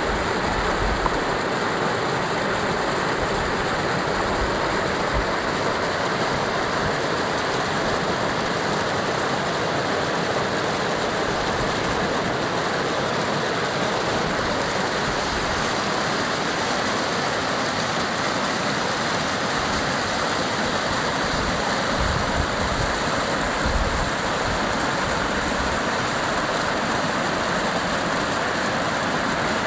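Muddy flash-flood water rushing and churning over rocks, a steady loud whitewater rush that keeps up without a break.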